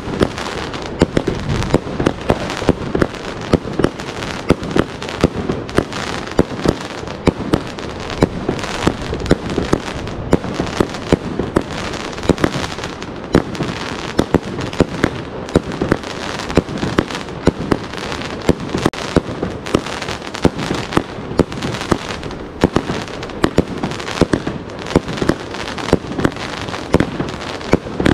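Fireworks and firecrackers going off in a dense barrage: a steady din of crackling and bangs, with sharp loud reports several times a second and no let-up.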